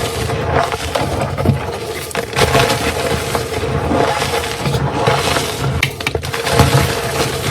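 Blocks of gym chalk being crushed, a continuous crunching with many small cracks and crumbles.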